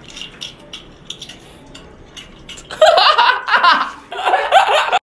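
Scattered light clicks and taps, then from about three seconds in loud, high-pitched laughter that breaks off briefly and starts again.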